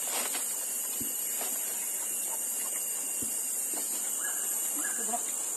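Steady, high-pitched insect chorus, with a couple of faint knocks.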